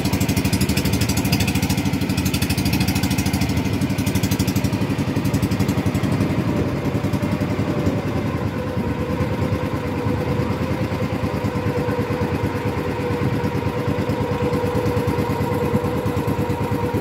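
Small engine of a motorized wooden outrigger boat (bangka) running steadily under way, its note dropping slightly and settling about halfway through.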